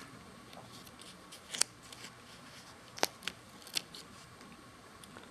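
A few light, sharp clicks and taps from a tempered-glass screen protector being handled and pressed into place on a smartphone screen, spread over a few seconds with faint hiss between them.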